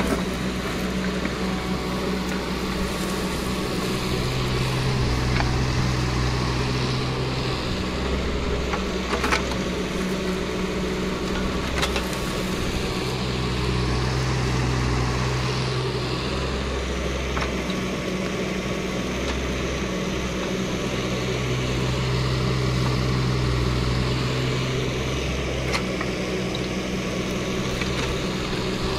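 JCB 16C-1 mini excavator's diesel engine running under hydraulic load while it digs. Its note swells and eases every several seconds as the arm and bucket work. A couple of sharp knocks come about nine and twelve seconds in.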